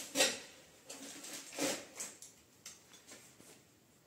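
A few short rustles and scrapes of a tea set's packaging as porcelain cups are worked out of a tight-fitting box insert.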